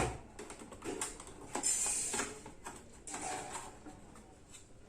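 Scattered light clicks and brief rustling from hands handling things, with two short noisier patches about one and a half and three seconds in.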